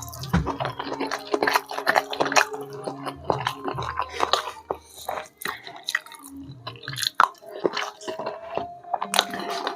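Close-miked chewing and wet, squishy mouth sounds of someone eating flat rice noodles and enoki beef, made up of irregular smacks and clicks.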